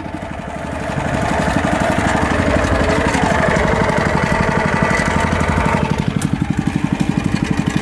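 Small fishing boat's engine running with a steady rapid pulse. A higher whine sits over it until about six seconds in, after which the engine's beat stands out more clearly.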